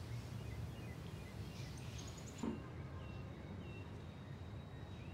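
Quiet room tone with a steady low hum and a few faint, short high chirps, like small birds heard from outside. A single soft knock about two and a half seconds in.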